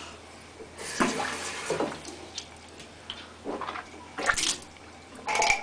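Water at a bathroom sink, splashing and running in about five irregular bursts, over a low steady hum.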